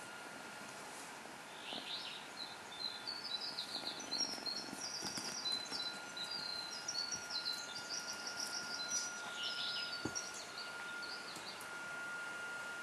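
A small songbird singing a long, continuous run of quick, high chirps and trills for about ten seconds. A faint steady high-pitched whine runs underneath.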